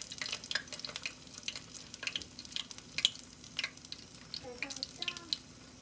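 Wonton-wrapped pickle bites frying in hot oil, with many small irregular crackles and pops.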